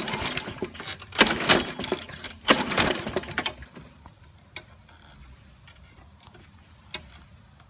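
Recoil starter cord of a Briggs & Stratton push-mower engine pulled three times in quick succession, each pull a short whirring rush of about a second, with the engine primed and on choke after a carburetor replacement but not yet catching. A few faint clicks follow.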